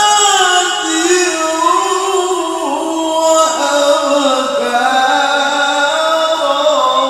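A male qari's voice reciting Arabic in the melodic tilawah style, amplified through a handheld microphone: one long unbroken phrase of held, ornamented notes that waver and step down between pitches.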